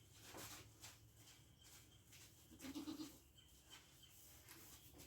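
A Nigerian Dwarf goat gives one short, low bleat about halfway through, amid faint scattered knocks.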